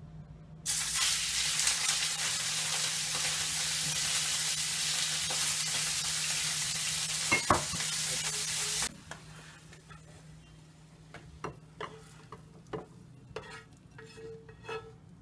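Strips of beef dropped into hot oil in a frying pan, sizzling loudly; the sizzle starts suddenly about a second in and stops abruptly about nine seconds in, with one sharp clack partway through. After that, quieter scattered clicks and scrapes of metal tongs against the pan as the fried meat is tipped into a bowl.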